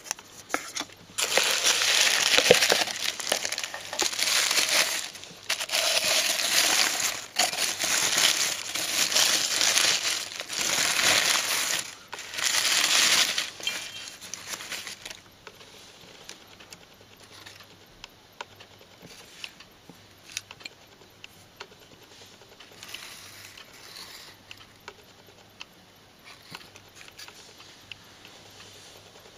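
Tissue paper crinkling loudly in repeated bouts as it is pulled open inside a gift box. After about fifteen seconds it gives way to faint, scattered clicks of handling.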